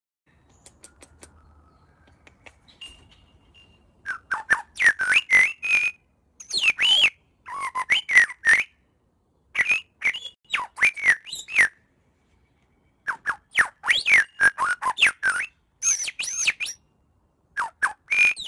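Grey shrike-thrush singing at close range: phrases of clear, whistled notes sliding up and down, starting about four seconds in and repeated with short pauses between them.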